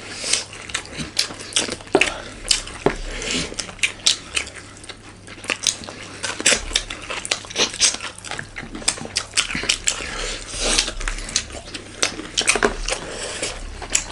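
Close-miked eating sounds: chewing with many irregular wet clicks and smacks, and now and then a light clink of cutlery or a plate.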